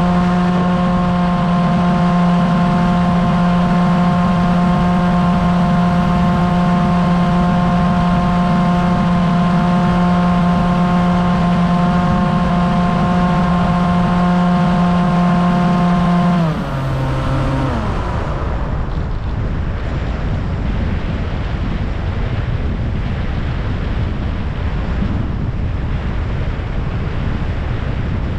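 Bixler RC plane's electric motor and propeller running with a steady whine. About two-thirds of the way through it is throttled off, its pitch sliding down to stop. After that only wind rushes over the onboard microphone as the plane glides.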